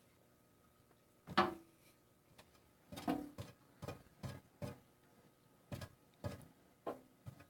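About a dozen irregular clicks and knocks from hands working on an old furnace blower while its bearings are being oiled, the loudest a little over a second in.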